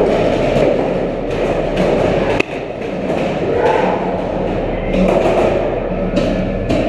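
Paintball markers firing in irregular bursts of sharp shots, with paintballs smacking into barriers, echoing in a large indoor arena. A single sharp crack stands out about two and a half seconds in.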